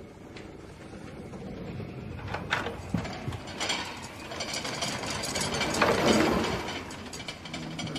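Film sound effects of the sinking ship's interior: a low mechanical rumble with rattling clicks, swelling to a loud rush of noise about six seconds in.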